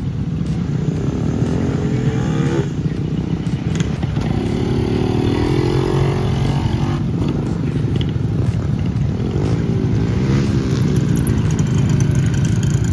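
Small motorcycle engines running as the bikes ride slowly along an unpaved road, over a steady low rumble. The engine pitch rises and falls three times.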